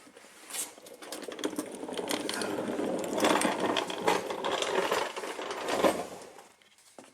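Hand ratchet wrench clicking rapidly, working a fastener for about five seconds.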